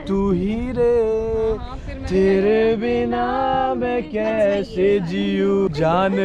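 A man singing a Hindi song melody, holding long notes that bend in pitch.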